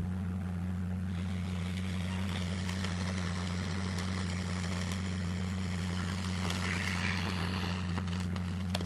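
A lit handheld firework spraying sparks, hissing from about a second in until near the end, with a few crackles near the end. A steady low hum runs underneath throughout.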